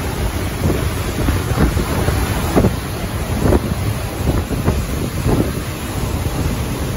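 Typhoon-force wind blowing in strong irregular gusts, buffeting the microphone with a heavy low rumble.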